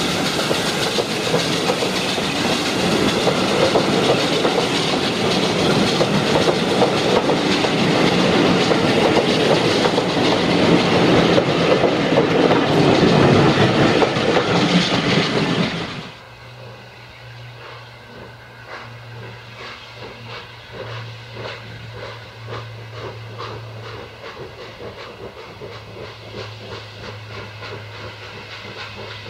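Double-headed steam train led by Austerity 0-6-0 saddle tank 132 'Sapper' running past close by: locomotives and coaches rumbling and hissing, with wheels clicking over the rail joints. About halfway through it drops off sharply to a distant steam train working across the valley, heard as a quieter low hum with faint regular beats.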